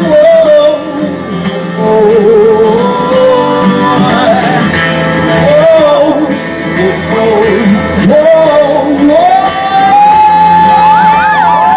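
Live male vocalist singing a wordless, wavering melody over amplified guitar-led band accompaniment with a steady beat, rising into a long held note near the end as shouts from the audience begin.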